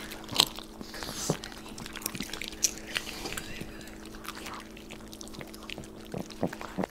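Small dogs crunching and chewing popcorn: irregular crisp crunches and clicks, over a steady low hum.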